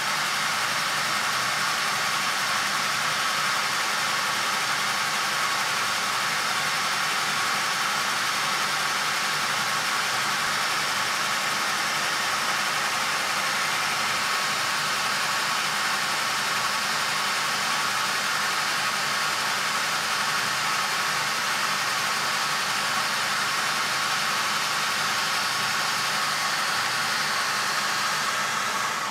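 High-speed rotary tool with a small grinding stone, running steadily with a high, even whine, together with the Myford ML7 lathe turning a Pratt Burnerd three-jaw chuck. This is tool-post grinding of the worn chuck's jaws to take out their bell-mouth wear. The noise starts to die away near the very end.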